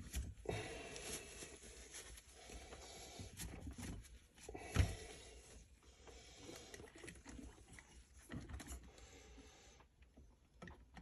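Light handling noises from working on an RC axle's differential case: small clicks, taps and rubbing, with one sharper knock about five seconds in.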